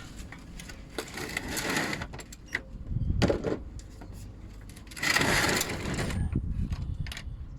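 Metal hand tools clinking and rattling as someone rummages for a hex bit, in two longer rattling spells with scattered clicks between.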